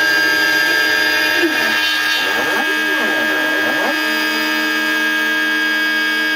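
Home-built CNC router engraving acrylic: the spindle runs with a steady whine while the stepper motors sing in tones that glide up and down as the axes move, most busily between about one and four seconds in.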